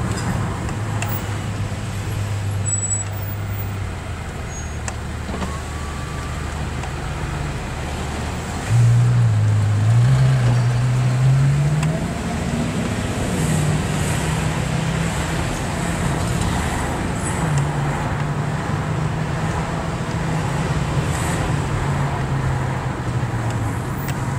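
Ferrari F12 Berlinetta's 6.3-litre V12 running at low revs in slow traffic. About nine seconds in it gets louder and its pitch climbs for some three seconds as the car accelerates, then it eases off and holds a steady, somewhat higher note.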